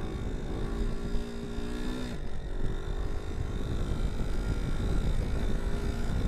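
1984 Suzuki SP250's single-cylinder four-stroke engine pulling under throttle as the front wheel is lifted, with heavy wind noise. The engine note breaks off briefly about two seconds in, as for a gear change, then pulls again and climbs slowly near the end.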